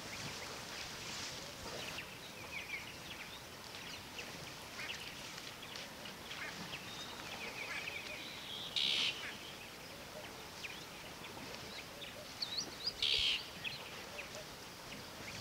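Wild birds chirping and calling, many short high chirps and twitters. Two louder short rasping calls stand out, about nine and thirteen seconds in.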